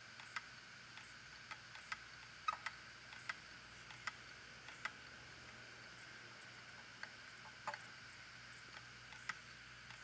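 Opened, failing hard drive spinning with a faint steady hum while its read/write head arm clicks irregularly, one or two clicks a second, as it is nudged by hand over the platter. The drive's head has already scratched the platter, a sign that the drive is dying.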